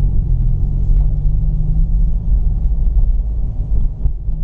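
A 2017 Subaru WRX's turbocharged 2.0-litre flat-four engine and road noise, heard from inside the cabin while driving: a steady low rumble that dips slightly near the end.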